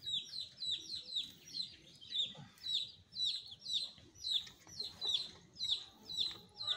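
Young chicken peeping over and over, high-pitched calls that each fall in pitch, about two a second.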